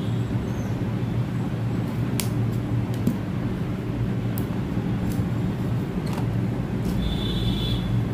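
A steady low mechanical hum under sharp clicks and taps of scissors snipping the sealing tape on a cardboard phone box and the box being handled. A brief high-pitched scrape comes near the end.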